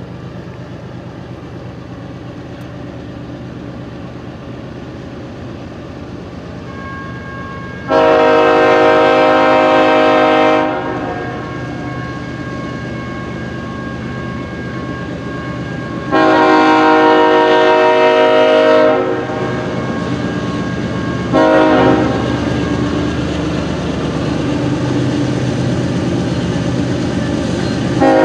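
Diesel locomotive approaching and sounding its multi-chime air horn in the grade-crossing pattern: two long blasts, one short, and a final long blast starting near the end. Under the horn the engine's low rumble grows steadily louder as the train nears.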